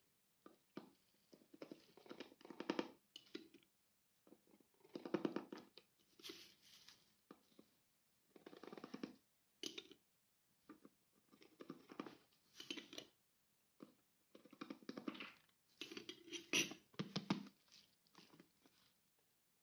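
Thin plastic water bottle crinkling in the hand while sugar is spooned into it with a metal spoon, in faint, irregular bursts of rustling and crackling a second or two apart.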